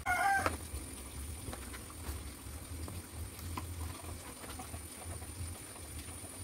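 A short animal call in the first half second, then faint scattered ticks over a steady low hum.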